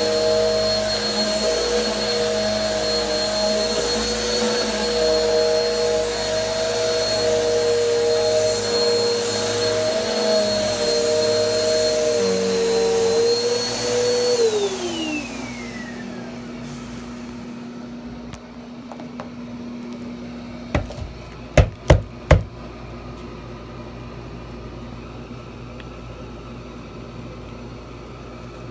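Bissell PowerForce Helix bagless upright vacuum running on carpet, then switched off about halfway through, its motor whine falling away over a second or two. A few seconds later come four sharp clicks close together.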